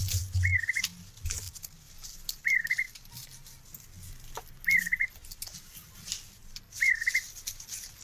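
A bird's short whistled call, repeated four times at even spacing about two seconds apart, over scattered clicks and rustling.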